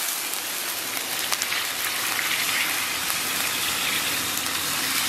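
Water poured in a steady stream from a jug into a hot wok of fried pork belly, with a continuous splashing rush as the pan fills.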